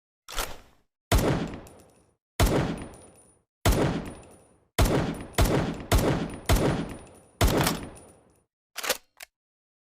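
Homemade sound effect imitating M1911 pistol shots: about nine loud, sharp bangs, each with a long fading tail, several fired in quick succession in the middle. Fainter clicks come just before the first bang and after the last.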